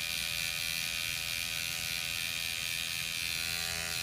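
Rejuvapen electric microneedling pen running with a steady, even buzz as it is worked over the skin of the face.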